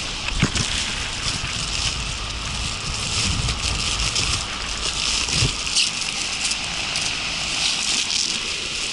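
Steady rush of heated air blown by fans through flexible plastic ducting, with crackling and rustling of the plastic duct. A low rumble of air buffeting the microphone swells between about three and five and a half seconds in.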